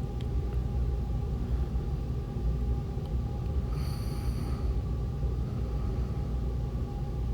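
Steady low rumble with a faint hum running under it. A short high electronic tone sounds for under a second about four seconds in.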